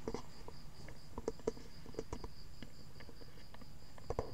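A cricket chirping steadily in a high, pulsing trill, with scattered small clicks and knocks from the webcam being handled and turned.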